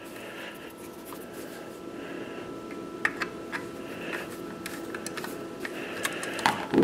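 Small metal clicks and scrapes of a screwdriver backing off the set screw of a Harris bipod adapter on a rifle's sling mount, over a steady hum. The handling noise grows louder near the end.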